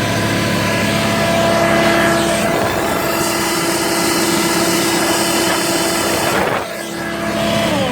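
Black Max BMi2100 portable generator running under heavy load, powering a vacuum and a Flex 3401 rotary buffer at once, with the motors' whine mixed in; the load is at its limit, with the overload light blinking. About six and a half seconds in the sound drops quieter, and near the end a motor's whine falls in pitch as it spins down.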